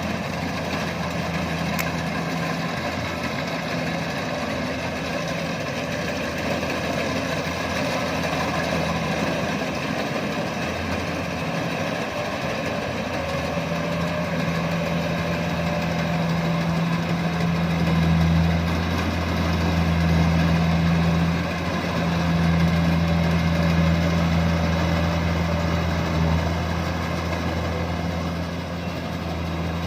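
Rice combine harvester's engine running steadily with a low hum, growing louder about two-thirds of the way through.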